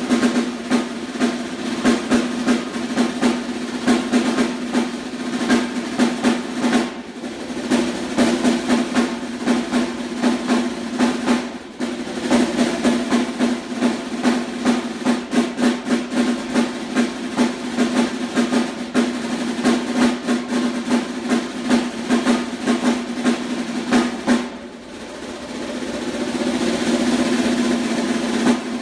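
Solo snare drum played in fast, dense strokes with sharp accents, the drum's ring sounding under every stroke, broken by brief pauses. Near the end it settles into a sustained roll that swells in volume.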